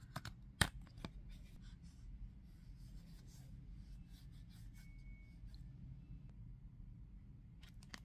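Close handling of a phone case and its paper packaging: a few sharp clicks and taps in the first second, then soft rustling and rubbing of paper, and another couple of clicks near the end. Quiet throughout.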